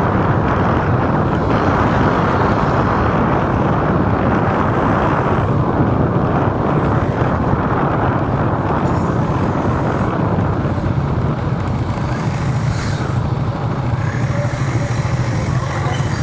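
Steady hum of a vehicle driving through city traffic, with engine and road noise.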